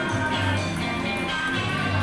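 Background music with a repeating low bass note under sustained tones.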